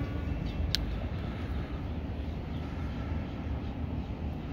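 A long horn blast signalling a drawbridge opening cuts off just after the start, leaving a steady low rumble with one sharp click about three-quarters of a second in.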